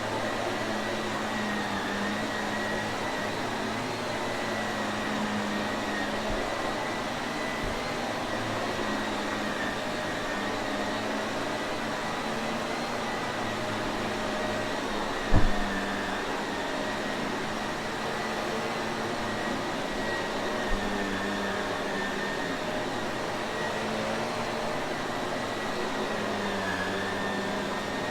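Shark Navigator upright vacuum cleaner running steadily, a continuous rushing hum with a high, slightly wavering whine. A single sharp thump sounds about halfway through.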